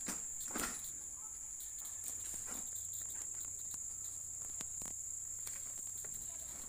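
Steady high-pitched insect drone, like crickets, with a few soft knocks and taps scattered through.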